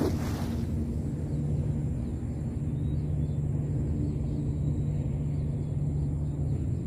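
A cast net lands on the water with a brief splash at the start. A steady low hum with a few held low tones follows while the net is drawn back in.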